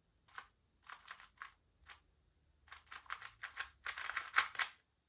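2x2 Rubik's Cube being turned by hand through a sequence of moves: rapid plastic clicks and clacks in short bursts, sparse at first and then denser and louder from about three seconds in.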